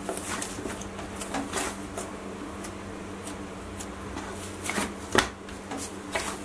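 Hands kneading wheat-flour dough in a stainless-steel plate: soft, irregular presses, slaps and scrapes of the dough against the metal, with a sharper thump about five seconds in.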